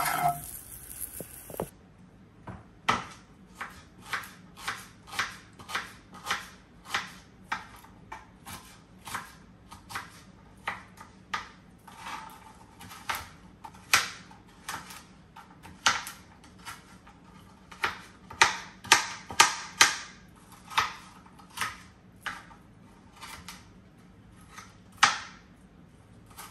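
A long series of sharp, separate taps, irregular, roughly one a second, some much louder than others.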